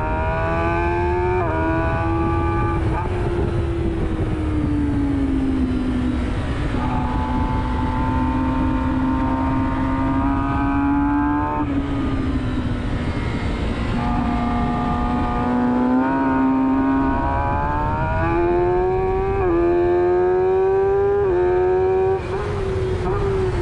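2020 Kawasaki Ninja ZX-10R's inline-four engine at full track speed, heard on board over steady wind rush. Its pitch falls and holds through the slower corners, then climbs hard in steps through the gears as the bike accelerates onto the straight near the end.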